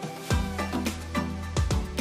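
Background music with a steady beat: punchy kick drum over a held bass line and pitched instruments.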